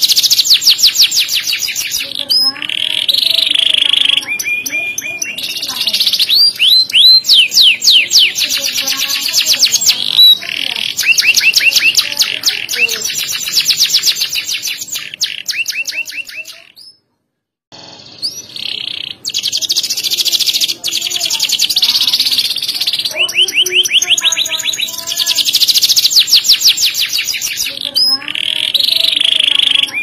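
Domestic canary singing a long, loud song of fast trills and rolling phrases, with a short break just past halfway before it carries on.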